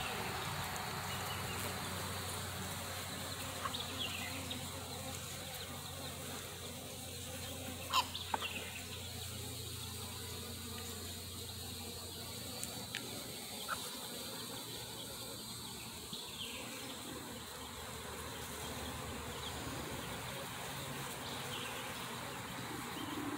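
Honeybees humming over the open frames of a nuc box, a steady buzz, with a few light knocks, the loudest about eight seconds in.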